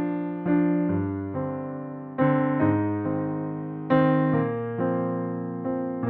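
Background music: slow electric piano chords, struck about once a second and left to fade.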